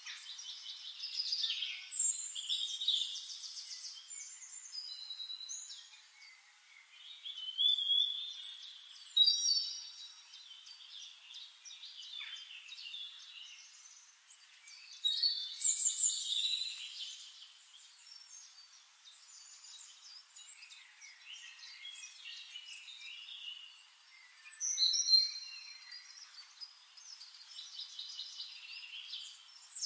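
Birdsong: phrases of chirps, trills and whistles, with louder phrases about a second in, around eight to nine seconds, around fifteen to sixteen seconds and about twenty-five seconds in.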